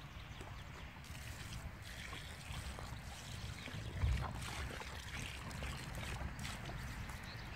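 Water pouring from a plastic jerry can into a dug planting hole in dry soil, with a thump about four seconds in.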